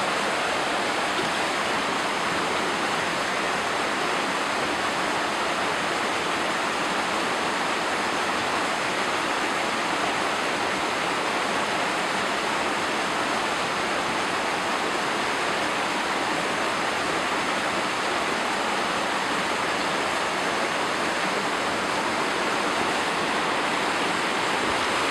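Steady rush of water from a waterfall and stream inside a cave, an even noise that keeps the same level without a break.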